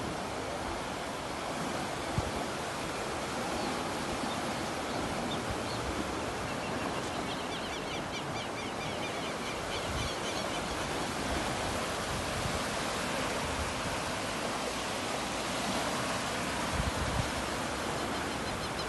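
Steady rushing of floodwater, with wind buffeting the microphone in low rumbles.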